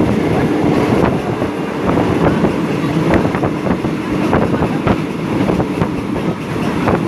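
Moving passenger train heard from inside a coach: a steady rumble of wheels running on the rails, with irregular clicks and knocks and wind noise on the microphone.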